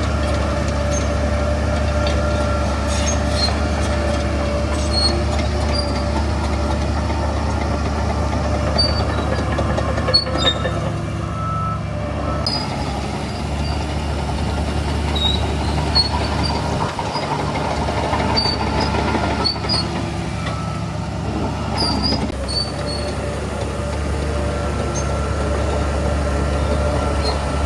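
Shantui DH17C3 bulldozer's diesel engine running steadily under load, with scattered short high squeaks and clicks from the working machine. The engine dips briefly a little before halfway and again about two-thirds through.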